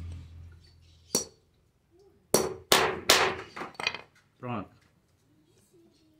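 Hammer blows on the steel punch of a hand-struck airgun slug die, pressing a lead slug in the die as it stands on the floor: a light tap about a second in, then three loud sharp metal strikes in quick succession and two lighter ones.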